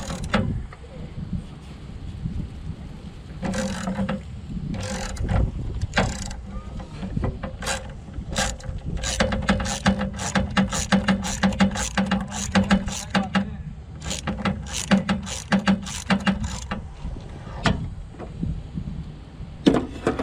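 Hand ratchet wrench clicking in several runs of quick, even clicks as a bolt is turned, with short pauses between the runs.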